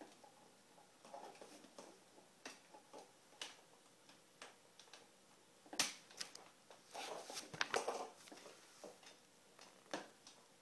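Scattered light plastic clicks and knocks from handling the H2O Mop X5 steam mop's parts and power cord. The sharpest click comes about six seconds in, followed by a quick flurry of clicks over the next two seconds and one more near the end.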